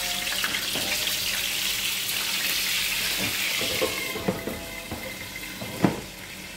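Kitchen cooking sounds: a steady watery hiss that fades out about four seconds in, then a few clinks and knocks of a glass pot lid and pans on a gas stove, the sharpest one near the end.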